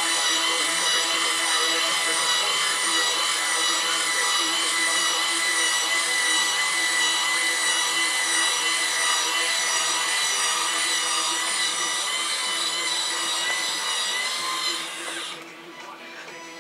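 The small electric motor of an RC tipper truck's tipping mechanism whining steadily as it lowers the dump body. It stops about fifteen seconds in as the body comes down onto the chassis.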